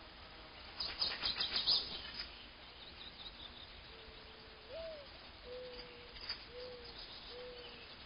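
Cartoon bird sound effects: a quick run of chirps about a second in, then a string of soft single notes, one held, one sliding upward, and three short ones near the end.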